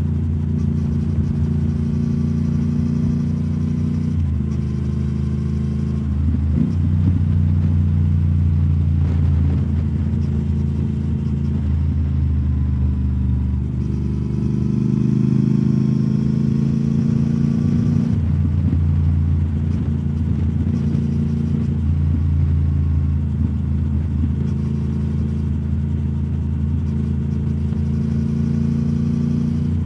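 2021 Triumph Speed Twin 1200's parallel-twin engine running through British Customs Turnout exhaust tips while under way. Its note drops about four seconds in, rises again around fourteen seconds and falls back near eighteen seconds, as the throttle changes.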